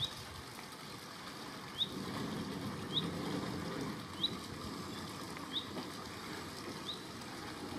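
A small bird repeats one short, sharp rising call note six times, about once every second and a quarter, over the faint low rumble of a narrow-gauge locomotive drawing slowly nearer.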